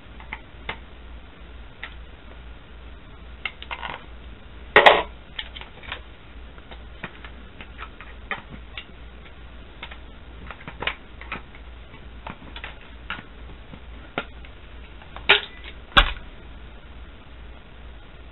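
Scattered small clicks and taps of a screwdriver and hands working on the plastic battery compartment of a Hess toy space shuttle to take out its batteries. There is a louder knock about five seconds in and two more near the end.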